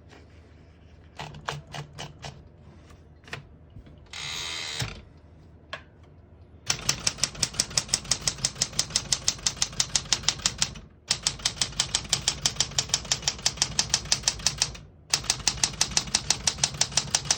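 1975 Smith-Corona Galaxie Twelve portable typewriter: a few scattered clicks, a rasping sound lasting about a second, then three long runs of rapid, evenly spaced keystrokes typing across the line toward the right margin.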